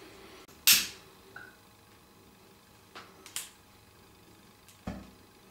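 A lighter being clicked to light the pop-pop boat's small candle: a sharp snap under a second in, two lighter clicks around three seconds, and a duller knock near the end.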